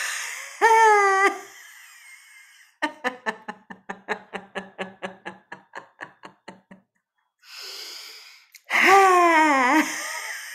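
A person doing a laughter-yoga lion laugh, tongue out and mouth wide open: a loud short "haaa", then a run of quick staccato "ha-ha-ha" laughs at about five a second, a breathy intake, and a long loud wavering laugh near the end.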